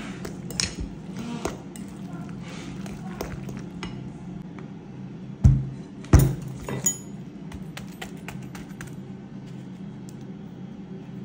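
A spoon clinking and scraping against a glass bowl as a thick filling is stirred, with two loud knocks about halfway through and a steady low hum underneath.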